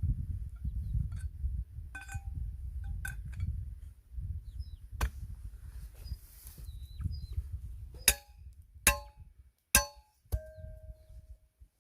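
Firewood being split by hand: about five sharp strikes in the second half, several leaving a short ringing tone. A low rumble fills the first few seconds.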